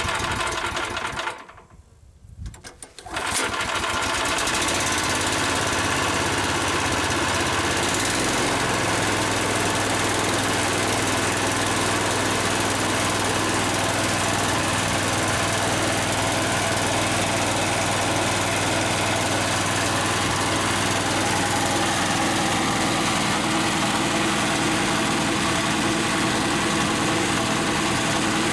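Harbor Freight 11 HP single-cylinder gas engine being pull-started: a first burst of noise, a brief lull, then it catches about three seconds in and runs steadily, belt-driving a two-cylinder air compressor pump.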